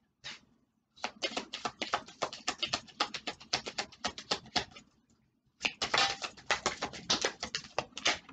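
A Kipper fortune-telling card deck being shuffled by hand: two runs of rapid clicks, each a few seconds long, with a short pause about halfway through.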